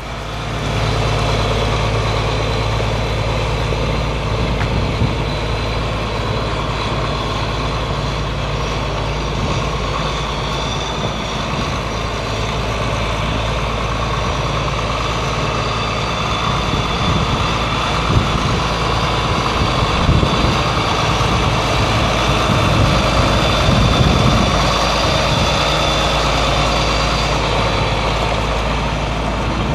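John Deere 4450's six-cylinder turbo diesel engine idling steadily.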